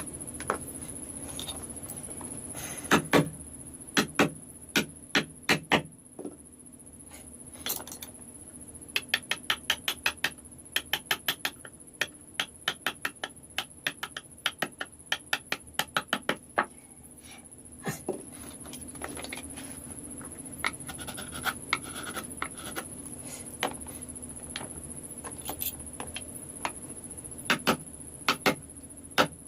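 Sharp taps of a wood-carving chisel being struck by hand, in short runs with one long even run of two to three taps a second.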